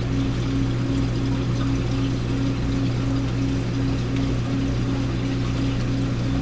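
Aquarium pump and filter running with a steady low electric hum, water pouring and trickling through the tank.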